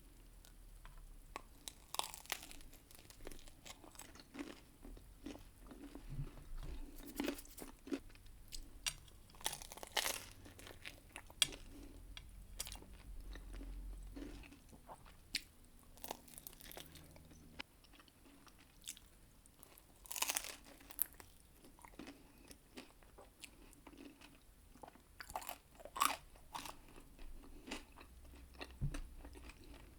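Close-miked chewing and biting into pizza, with irregular crisp crunches of the crust between softer chewing.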